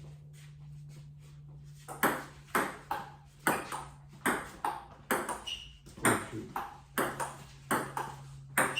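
Table tennis ball being hit back and forth, with sharp clicks of the ball on paddles and table about two a second. The rally starts about two seconds in and keeps going.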